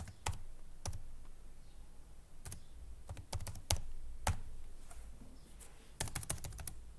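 Typing on a computer keyboard: irregular key clicks, spaced out at first, with a quick run of keystrokes near the end.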